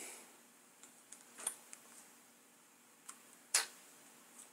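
A few faint, scattered clicks and taps from a small plastic dropper bottle and pipette being handled while filling, the loudest about three and a half seconds in.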